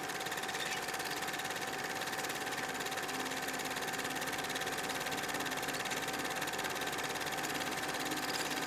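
Film projector running: a steady, rapid mechanical clatter with a constant hum.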